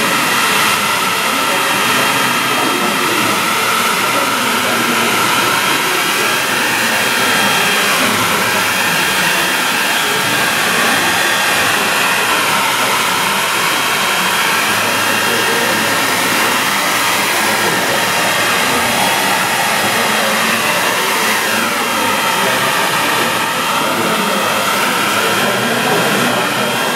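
Handheld hair dryer blowing steadily on high, its whine wavering up and down in pitch as it is swept over the paper.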